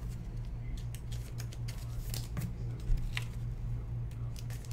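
Baseball trading cards being handled and flipped through: faint slides and light clicks of card stock over a steady low hum.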